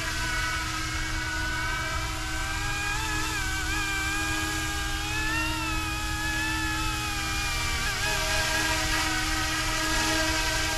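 YUXIANG F09-S scale RC helicopter in flight: the whine of its electric motor and rotors. The pitch wavers with the flying, rising through the middle and dropping back later, and it grows a little louder near the end.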